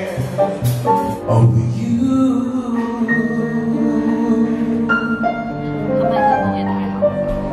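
Music: a singer holding long notes over piano and band accompaniment.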